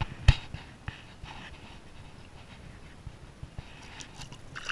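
Water splashing and dripping as a fish is handled and unhooked with pliers just above the surface, with one sharp knock about a quarter of a second in and scattered small clicks and splashes after it.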